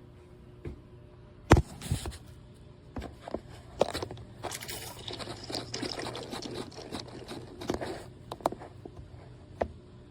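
Hands working at an espresso machine: a sharp knock about a second and a half in, then scattered clicks and clinks, with liquid pouring and splashing in the middle of the stretch, over a faint steady machine hum.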